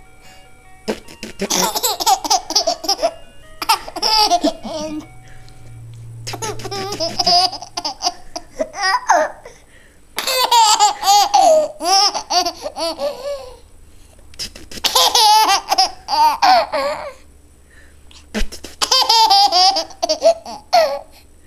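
Baby of almost 8 months laughing in about six bouts of high, bubbling giggles, each set off by a short spitting noise.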